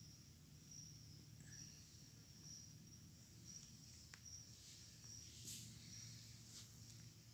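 Faint, high insect chirps repeating about every half second over a low rumble, with a few soft clicks or rustles.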